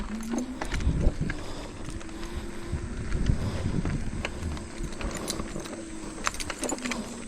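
Electric bike being ridden: a steady motor hum whose pitch drifts a little with speed, under scattered rattles and knocks from the bike.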